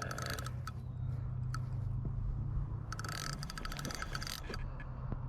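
Fishing reel clicking rapidly while a hooked fish is played, in two bursts: one ending just after the start and another running for about a second and a half from about three seconds in. A steady low rumble sits underneath.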